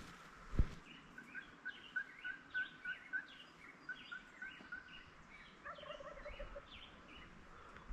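Turkey yelping: a run of about a dozen short, evenly spaced notes, with songbirds chirping higher above. A brief low rattling call follows near six seconds in. A single thump comes just after the start and is the loudest sound.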